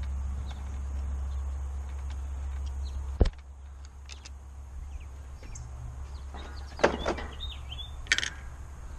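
Hand work on an outboard motor's carburetor: scattered metal clicks and knocks as it is worked loose, with a louder rattle of knocks near the end. A low steady hum cuts off with a sharp click about three seconds in.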